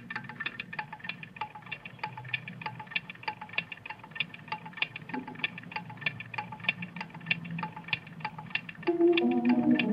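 Soundtrack music: a rapid, even run of tinkling chime-like notes, several a second, over a low hum. Near the end a louder guitar part comes in.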